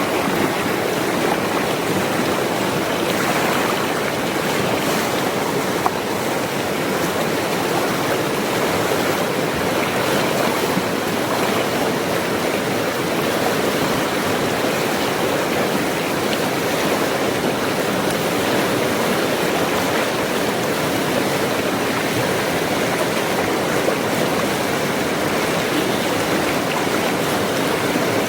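Steady rushing of a forest stream carrying rainy-season runoff.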